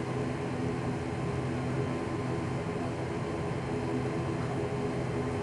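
ATR 72-500 turboprop engine and propeller running steadily while the airliner taxis, heard inside the passenger cabin: an even, low drone with several steady tones over a hiss.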